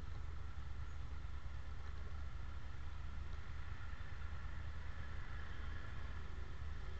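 Stopped traffic with motorcycle and car engines idling, a steady low hum with no change throughout.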